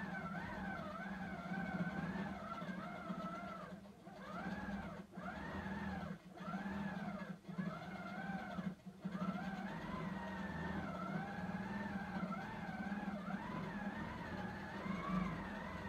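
Computer-guided longarm quilting machine stitching: a steady motor hum under a whine that rises and falls in pitch, with about five brief stops between four and nine seconds in.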